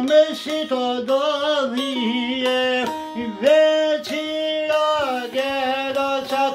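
A man singing an Albanian folk song and accompanying himself on the çifteli, a two-string long-necked Albanian lute, strummed in a steady pattern. His voice slides and wavers between held notes.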